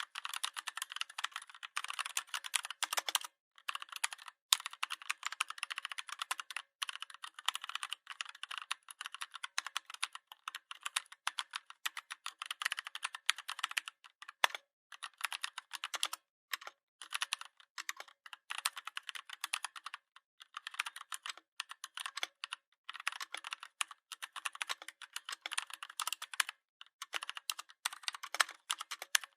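Computer keyboard typing: a fast, continuous run of key clicks with a few brief pauses.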